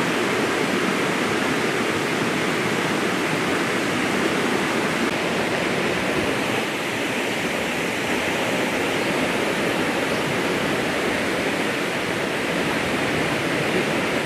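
Creek water rushing over rocks, a steady, unbroken noise of flowing water.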